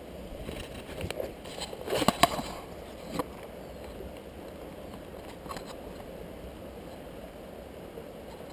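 Several sharp knocks and rustles between about one and three seconds in, loudest just after two seconds, with a couple of faint clicks later, over a steady low outdoor hiss.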